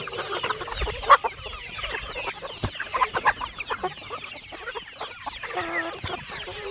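A flock of chickens clucking and chattering, many short calls overlapping, with a sharp click about a second in and a short held call a little before the end.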